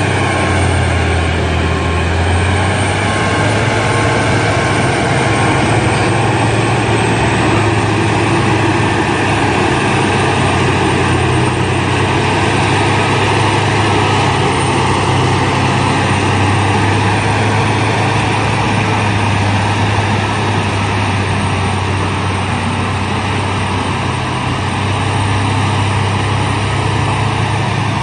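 Diesel engine of a LiuGong Dressta TD-40E crawler bulldozer running steadily, a constant deep drone with a thin high whine over it.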